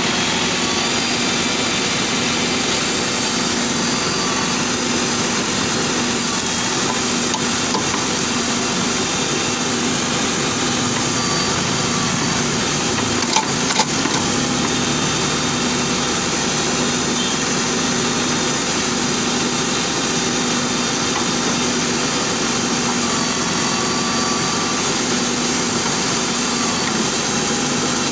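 JCB backhoe loader's diesel engine running steadily as the backhoe arm digs, with a couple of short knocks about halfway through.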